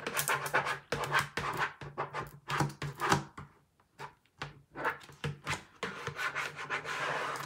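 Squeegee rubbing over a vinyl decal's transfer tape on a plastic bucket in short repeated strokes, pressing the vinyl down. The strokes pause for about a second a little before halfway, then carry on.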